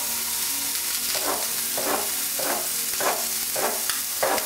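Pork tenderloin searing in a frying pan with a steady sizzle. From about a second in, a knife slices plantain strips on a wooden cutting board, with short strokes about every half second.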